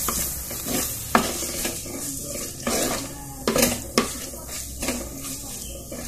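Squid masala sizzling as it dry-fries in a clay pot, stirred and scraped with a spatula, with several sharp knocks of the spatula against the pot. The cooking liquid has boiled off and the squid is frying without added oil.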